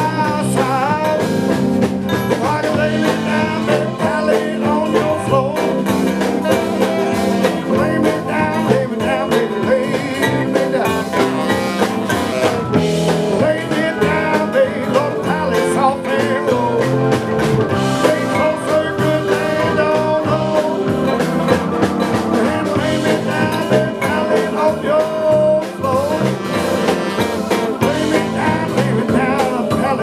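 A band playing a blues-style folk song live.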